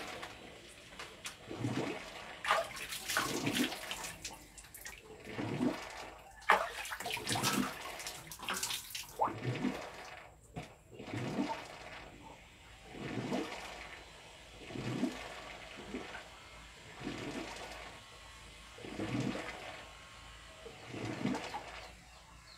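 Water splashing and pouring during a bath, loudest in the first half. After that come quieter sounds about every two seconds.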